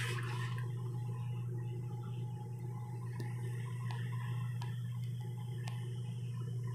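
Pot of tapioca pearls boiling in water under a steady low hum; a spoon stirs and scrapes in the pot briefly at the start, then a few faint ticks.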